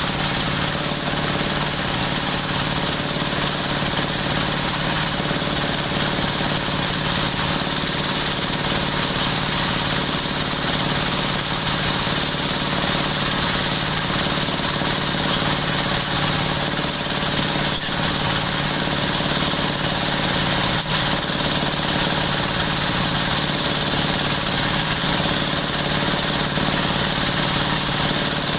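Dowel machine for broom handles running steadily, a constant machine drone with a strong high hiss and no change in speed.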